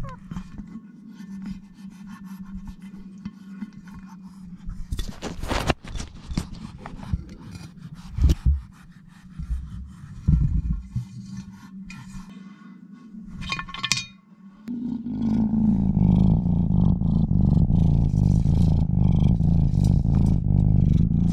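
Kittens' paws and fur scraping, rubbing and knocking on the walls of a clear tube toy, in scattered strokes with a few sharper knocks. About two-thirds of the way through, a loud steady low rumble starts close to the microphone and continues.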